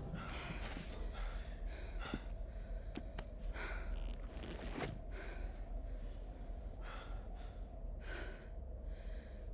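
A person breathing hard: a string of heavy, gasping breaths that come further apart toward the end, over a low steady hum.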